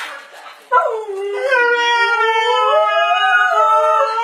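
A Siberian husky gives a long, wavering 'talking' howl that starts about a second in, its pitch rising and falling: a protest at another dog coming for its toy.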